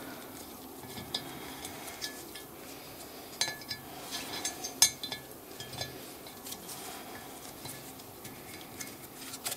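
Scattered light metallic clicks and clinks of a thread tap and its wrench being worked back and forth in a cylinder head's bolt hole, cutting the thread for a Helicoil insert, with the tap a little tight. The clinks bunch up and are loudest around the middle.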